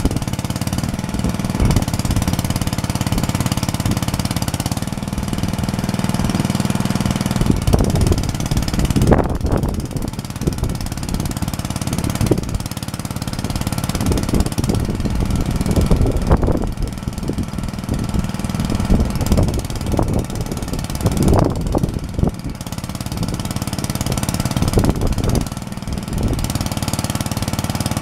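Homemade minitractor's engine running steadily while driving its hydraulic front lift, which raises the loader frame. The engine note turns louder and rougher several times, about a third of the way in, around the middle and again later.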